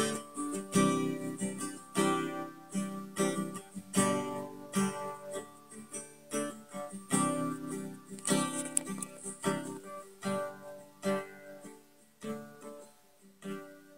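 Acoustic guitar strumming chords with no singing, fading out near the end.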